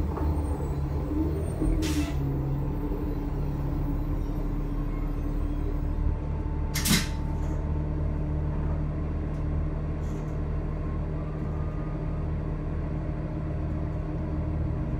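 Cabin sound of a 2007 New Flyer C40LFR bus: its Cummins C-Gas Plus natural-gas engine and Allison transmission running with a steady low drone. Two short hisses of air cut in, about two seconds in and a louder one about seven seconds in.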